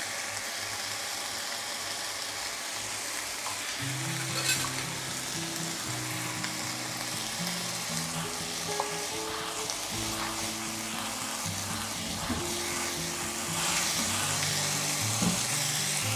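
Shredded cabbage, carrot and green capsicum sizzling as they stir-fry in oil in a pan. The sizzle grows louder near the end as the vegetables are stirred with a silicone spatula.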